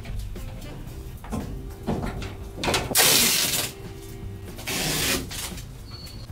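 Cloth (gaffer) tape being pulled off the roll in two rasping tears, each under a second, with a few light knocks of handling as a cable is taped to the wall.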